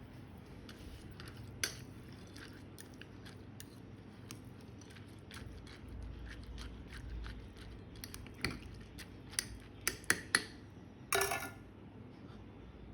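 Small utensil sounds against a mug or dish: scattered light clinks and taps, a cluster of sharper clinks about eight to ten seconds in, then a short scrape.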